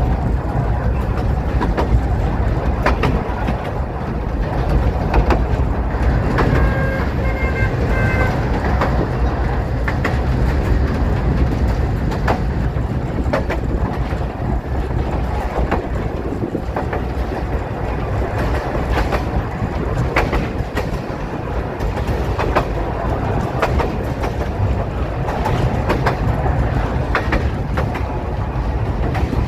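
Narrow-gauge passenger carriage running along the track, heard from the open car: a steady rumble with irregular clacks of the wheels over the rail joints.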